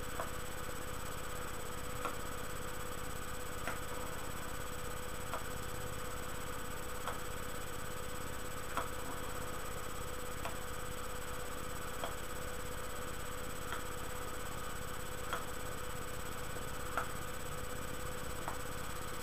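Steady hiss and hum of a recording's noise floor, with a faint click about every second and a half to two seconds.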